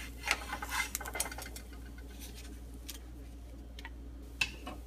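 Scattered light clicks and taps of a wooden spatula on a nonstick frying pan and a plate as a cooked chapati is moved from the pan, over a steady low hum.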